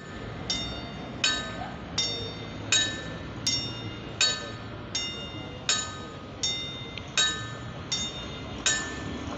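Railway warning bell striking steadily, a little over once a second, each strike ringing metallically, over the low rumble of an electric train approaching through the tunnel.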